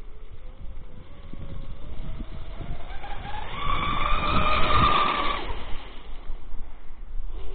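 Genesis RC catamaran's brushless electric motor (SSS 3674 on 6S) whining at high speed. The whine rises steadily in pitch as the boat speeds up, is loudest about four to five seconds in, then fades away.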